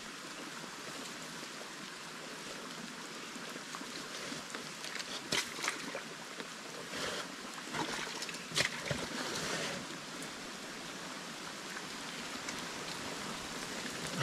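Steady hiss of running water and rain in wet bush, with a few short knocks and scuffs, the clearest about five and eight and a half seconds in.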